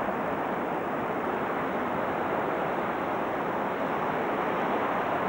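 Steady rushing noise of wind and breaking surf.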